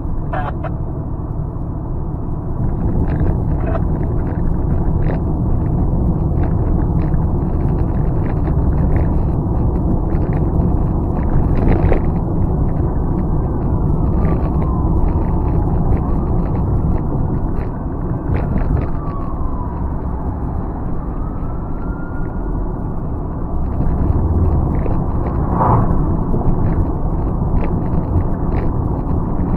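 Car driving slowly, heard from inside the cabin: a steady low rumble of engine and tyres on the road, with scattered clicks and rattles. Several thin squeals slide in pitch midway through.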